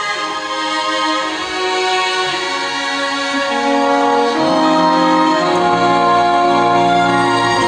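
Orchestral music with strings playing long held chords; lower notes come in about halfway and the sound grows fuller and a little louder.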